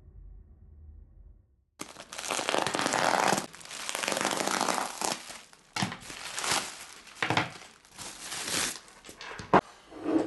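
Bubble wrap crinkling and tearing as a package is unwrapped by hand, in irregular rustling bursts starting about two seconds in, with one sharp knock near the end.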